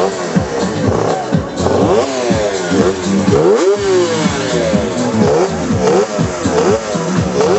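Yamaha 350 two-stroke racing motorcycle engine running on a stand, revved in repeated quick blips, its pitch rising and falling over and over.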